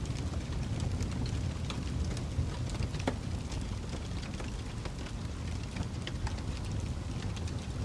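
Wood fire crackling: a steady low rumble of flames with scattered sharp pops and snaps from the burning logs.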